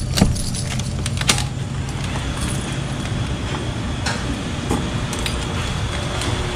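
A key turning in a metal door lock, with jangling and two sharp clicks in the first second and a half, then a few lighter knocks as the door swings open, all over a steady low hum.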